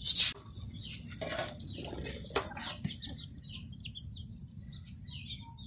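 Chicks peeping repeatedly in short high chirps, mixed with a few brief rustles and knocks, the loudest right at the start.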